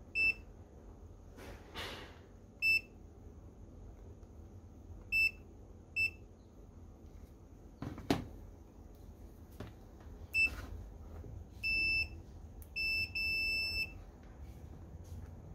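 TOOLTOP ET828 Pro multimeter's continuity buzzer beeping, a high electronic tone, as the test probes touch the inverter's output diodes. It gives five short beeps a few seconds apart, then three longer beeps near the end. In this test a beep means the diode is shorted and faulty, and there is a single knock about eight seconds in.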